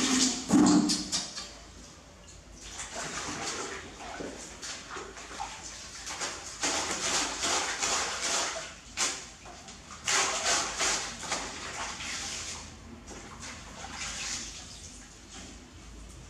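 Water splashing and sloshing in uneven swells as laundry is hand-washed in a metal basin.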